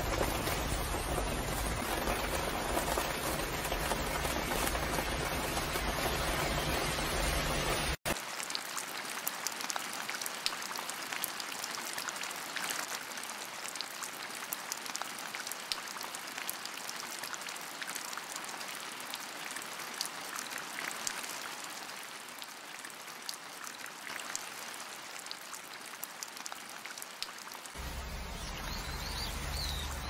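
Rain falling on the cover of a balcony-railing succulent house: a steady hiss of rain, turning about eight seconds in to lighter, crisper patter with distinct drop ticks. A bird chirps briefly near the end.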